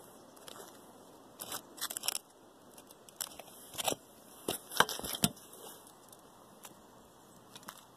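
Irregular gritty crackles, scrapes and clicks as gloved hands lift asphalt shingle tabs and work a caulk tube of structural adhesive under them. The sharpest clicks come in a cluster about four to five seconds in.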